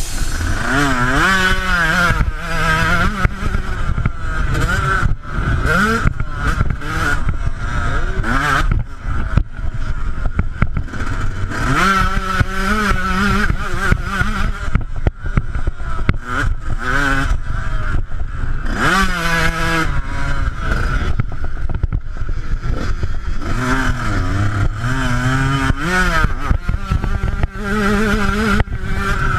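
Yamaha YZ125 two-stroke single-cylinder motocross engine being ridden hard. Its pitch climbs and drops again and again as the rider revs out, shifts and backs off, heard from the bike itself with rough noise over the engine.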